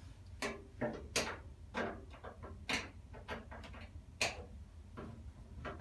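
Irregular sharp clicks and light taps of a screwdriver and screws being handled against the washer's cabinet as screws are fitted, about a dozen in all, the loudest about four seconds in.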